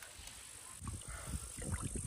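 A wet mesh weigh sling holding a carp being lifted off the cradle for weighing: water dripping and splashing from the sling, with irregular low thumps and knocks starting a little under a second in.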